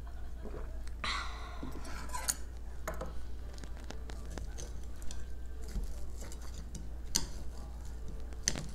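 Metal chopsticks tapping and scraping on a ceramic plate as they tear apart a chive pancake: a few sharp separate clicks spread over several seconds, after a brief rustle about a second in.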